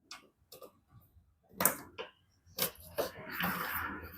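Sharp clicks and taps of small plastic parts being handled, a license plate lamp lens with its gasket and retaining clip, with a scratchy rustle from about three seconds in.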